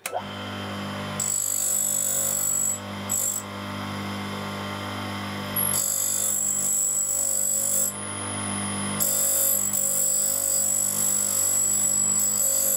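Tool and cutter grinder switched on, its motor and diamond grinding wheel running with a steady hum. A steel screwdriver bit is passed across the wheel to regrind its worn tip, giving a high-pitched grinding whine in several spells that start and stop as the bit meets and leaves the wheel.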